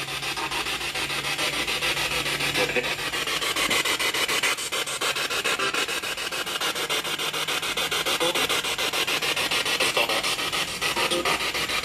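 Spirit box (a portable radio rapidly sweeping through stations) playing through a small external speaker: a steady, choppy rasp of static chopped up many times a second. Brief snatches of radio sound come through, which the investigators take for spirit voices saying "right here" and "I wrote a song".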